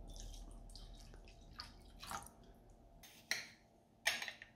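Milk pouring into a glass jug of cracked eggs, a faint low splashing that stops about three seconds in. Then come two sharp clinks, the second the louder, as a metal spoon dips into a glass sugar jar.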